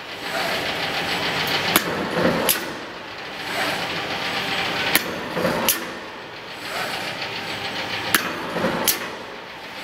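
Eccentric shear with a steel-rule knife cutting rubber sheet on automatic feed: a whirring feed motion followed by two sharp clacks, repeating about every three seconds, three times.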